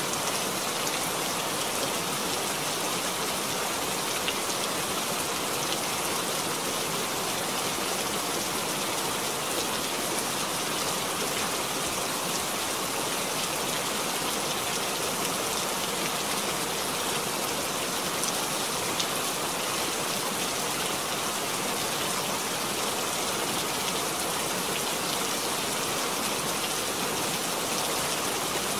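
Steady rain falling into a puddle: an even hiss of many drops on water, with an occasional single drop standing out.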